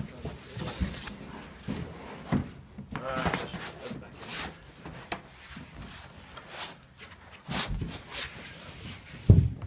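Irregular knocks, thuds and rubbing as the parts of a portable baptism pool are handled and fitted together, with the loudest thump near the end.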